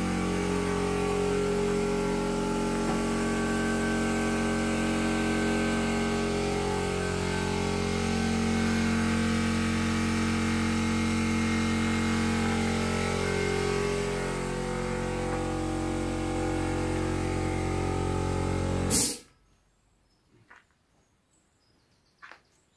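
A motor running steadily with a droning hum. Near the end it cuts off abruptly with a click, leaving near silence and a few faint ticks.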